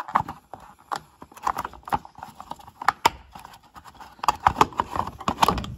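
Plastic clicks, knocks and scraping as a gloved hand pries and wiggles a stiff snap-on plastic cover off a truck's under-hood fuse box, coming thickest near the end.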